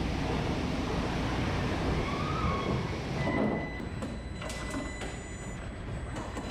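Truck assembly plant floor noise: a steady machinery din with low rumble. A steady high beep-like tone comes in about three seconds in, with scattered sharp clicks and taps after it.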